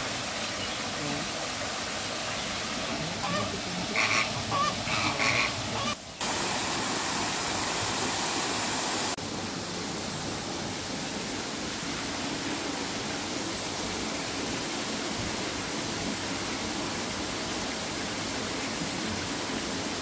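Flamingos honking a handful of short calls over the steady splash of a waterfall into their pond. Afterwards comes a steady outdoor hiss.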